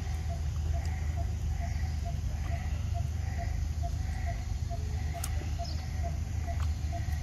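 Outdoor ambience under a steady low rumble: a bird repeats a short, even note about twice a second, with a higher call about once a second behind it. There is a single sharp click about five seconds in.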